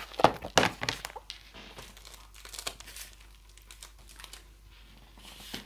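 Stamp-cleaning pad in its black plastic case being closed and set aside: a few sharp plastic clicks and rustles in the first second or so, then only faint handling sounds.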